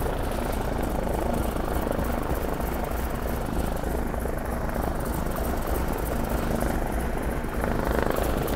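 Grumman Goose's left nine-cylinder radial engine running steadily at idle, heard from inside the cockpit as an even, low drone.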